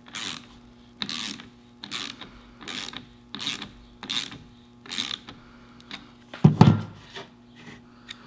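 Hand socket ratchet clicking in seven even strokes, about one every 0.8 s, as it tightens a hose clamp over a sleeve that squeezes a new Teflon piston seal down onto a power steering rack. A louder clunk comes about six and a half seconds in.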